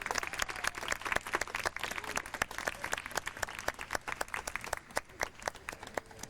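Audience applauding, many separate hand claps that thin out and die away near the end.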